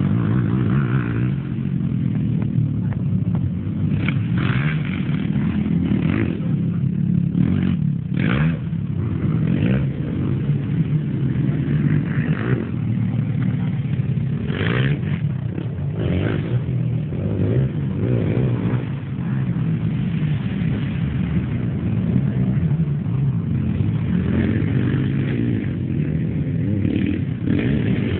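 Racing quad bike (ATV) engines running on a dirt track, revving up and easing off again and again as they go round.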